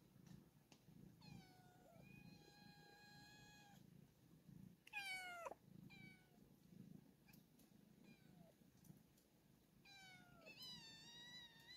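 Faint animal calls: a falling cry that levels into a long held note, a louder falling cry about five seconds in, two short cries, then another falling cry that runs into a wavering held note near the end.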